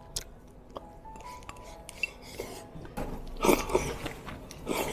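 Chopsticks clicking and scraping against a white ceramic rice bowl as the last of the rice is scooped from the bowl held at the mouth, with the louder scrapes about three and a half seconds in and near the end.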